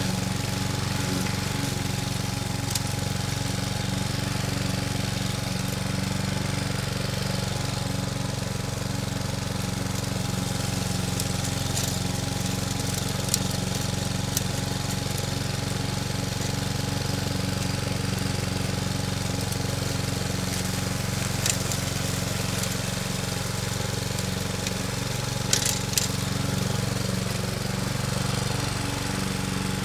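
Viking 21-inch petrol mulching lawn mower running steadily at full throttle while it is pushed through thick grass, with a few brief sharp clicks over the engine note.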